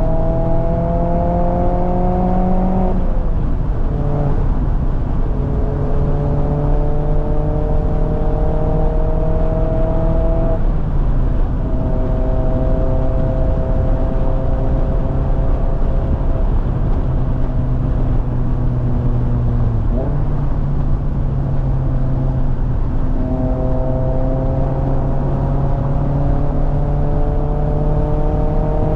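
Mazda MX-5 Miata ND's 2.0-litre four-cylinder engine and exhaust, heard from the open cockpit, pulling under acceleration. The pitch rises, breaks briefly for gear changes about three, eleven and twenty seconds in, and holds nearly level between about twelve and twenty seconds. A steady rush of wind and road noise runs underneath.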